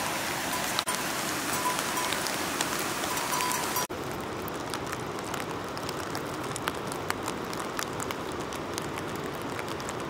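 Steady rain falling, with individual drops ticking close by. About four seconds in the sound changes abruptly to a slightly quieter patter in which the separate drop ticks stand out more.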